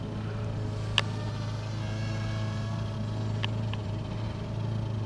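Parrot Rolling Spider minidrone's four small propellers buzzing steadily in flight, with a sharp click about a second in.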